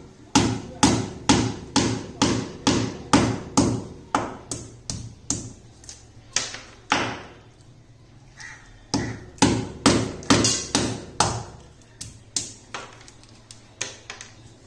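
Hammer driving wall plugs into drilled holes in a wall: a run of sharp, even blows about two and a half a second, a pause of a couple of seconds about halfway, then more blows that grow sparser near the end.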